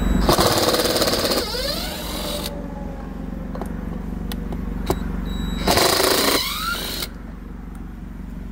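Cordless power driver backing out two Torx T25 screws from a car door panel: two short bursts of whirring, about a second each, one near the start and one about six seconds in.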